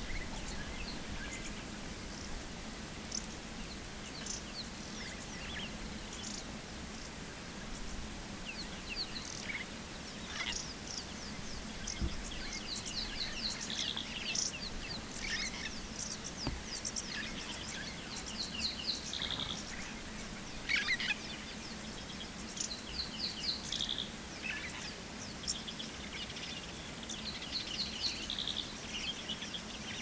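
Wild birds chirping and calling, many short high notes and phrases overlapping, busier after the first ten seconds or so, over a steady low hum.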